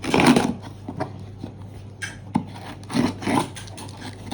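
Cardboard shipping box being worked open by hand, with scraping and rubbing of the flaps. The loudest scrape comes at the start, a sharp click about two and a half seconds in, two more scrapes around three seconds and another at the end.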